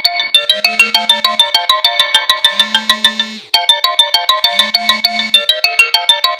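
Infinix Smart 6 incoming-call ringtone: a quick run of short, high pitched notes over a low held note that comes back about every two seconds. About halfway through it fades briefly and starts the tune over.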